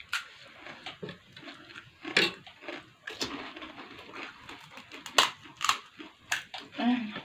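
Crisp pani puri (puchka) shells being bitten, crunched and chewed quickly, with irregular sharp crackles.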